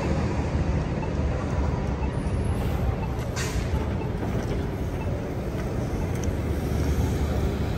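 Gillig hybrid-electric transit bus running past as it pulls through a turn, a steady low engine hum. A short hiss comes about three and a half seconds in.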